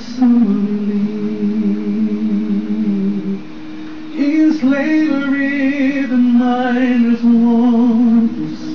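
A cappella male voices singing long held notes in harmony, the later notes with vibrato, with a man singing along into a microphone.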